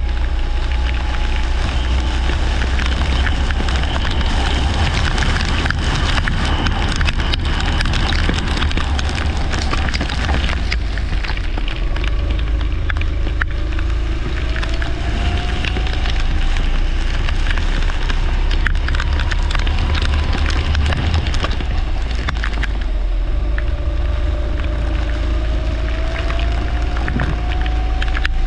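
Leisure kart engine running hard, its pitch climbing slowly twice as the kart accelerates, under a heavy low rumble and a constant crackling noise.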